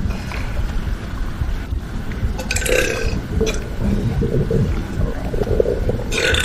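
A person burping: one long burp about two and a half seconds in, and another starting near the end, over a steady low rumble.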